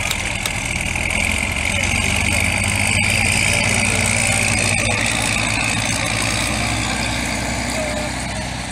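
Antique farm tractor engine idling steadily, a little louder in the middle and easing off near the end.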